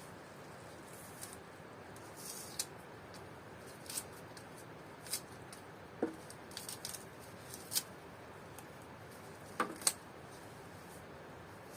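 Scattered light clicks and taps of kitchen utensils and food being handled during meal preparation, a second or two apart, with a sharper double tap near the end.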